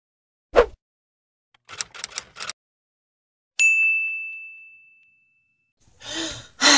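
Intro sound effects: a short swish and a few quick clicks, then a single high, bell-like ding that rings out and fades over about a second and a half as the logo appears. Near the end comes a brief breathy rush, like a sigh.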